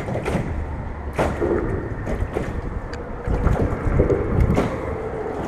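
A spinning reel being cranked to bring in a small crappie, with wind rumbling steadily on the microphone and several sharp knocks.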